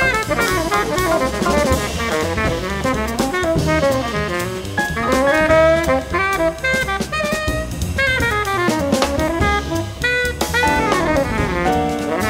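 Jazz quintet playing live: a saxophone plays fast runs that sweep up and down over drum kit, piano and double bass.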